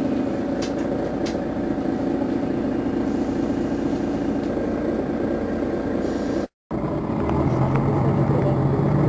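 Diesel engine of a Mercedes-Benz Citaro city bus idling steadily at a stop. About two-thirds of the way in, the sound breaks off for a split second and comes back as a deeper, louder hum.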